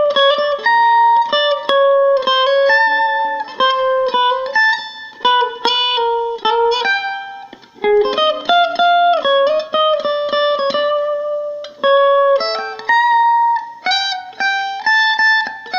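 Ryder EM-55 semi-hollow electric guitar played on its front pickup: a single-note melody of plucked notes, mostly high up the neck.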